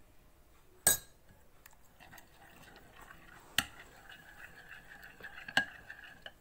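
Spoon stirring mint chutney into yogurt in a glass bowl: a sharp clink of the spoon against the glass about a second in, then steady wet scraping from about two seconds on, with two more clinks against the bowl.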